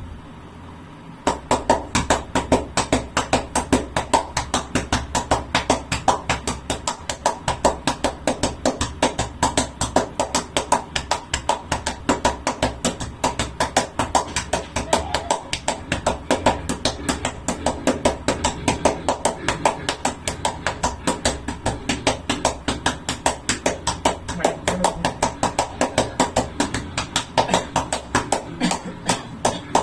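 A person doing a rapid breathing exercise to clear the chest: quick, forceful breaths out, about three to four a second, starting about a second in and kept up at an even pace.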